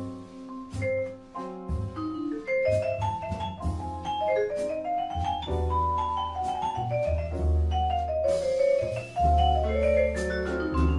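Background instrumental music: a melody of short, ringing struck notes moving up and down over repeated low bass notes.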